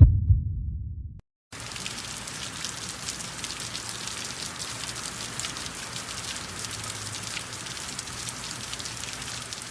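A low thump fading out in the first second, then, after a brief silence, steady rain falling: a dense, even hiss of many small drops.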